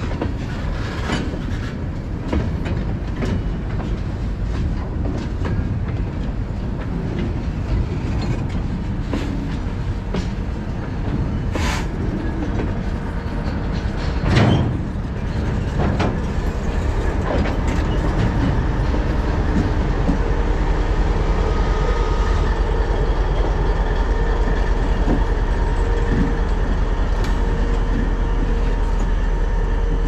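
EMD SD70ACe-T4 diesel-electric locomotive rolling slowly with a train of gondola cars: a steady low engine rumble under scattered wheel clicks and knocks over the rail joints. There is one louder clank about halfway through, and the engine sound grows a little louder and steadier past the middle.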